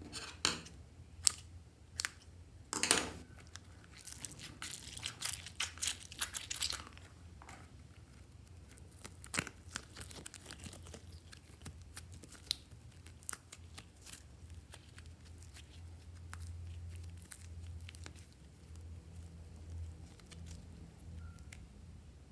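Rubber squishy stress toys filled with water beads and foam being squeezed and torn open over a glass dish: a few sharp snaps, then a spell of crackling and tearing, then scattered clicks. A low steady hum runs underneath.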